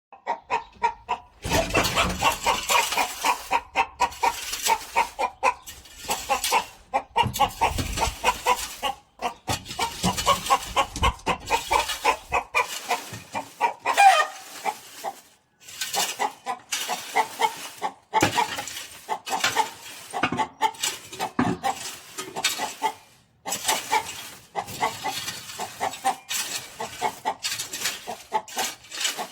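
Chickens clucking in quick, overlapping runs of short notes, with a few brief breaks where the sound cuts out.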